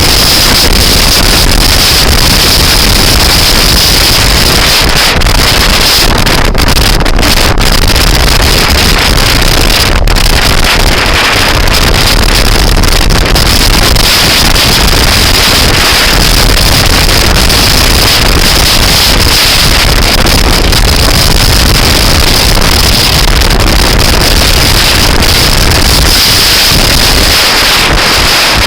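Loud, steady wind noise buffeting the microphone of a camera riding on a moving scooter, with vehicle noise mixed in beneath it.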